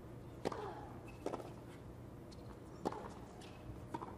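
Tennis ball struck by rackets in a rally on a hard court: a serve and the returns, about four sharp hits spread across a few seconds, the last a backhand from the near baseline.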